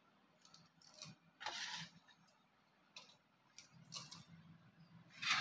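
Faint, scattered crackles and clicks: dried whole red chillies being crumbled by hand into a pot.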